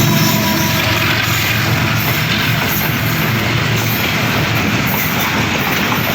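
Long passenger express running through at speed, its coaches rumbling and rattling steadily past on the rails.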